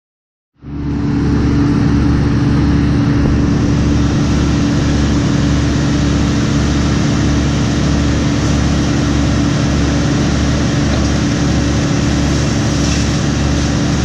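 Heavy engine running steadily under work, with a low, regular throb and a steady hum. It cuts in just after the start.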